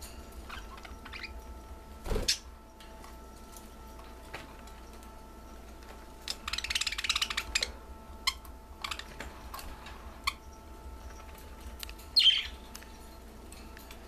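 Pet budgies chirping in a cage: a burst of warbling chatter about six seconds in and a sharp chirp about twelve seconds in. A loud thump comes about two seconds in, with small ticks scattered throughout.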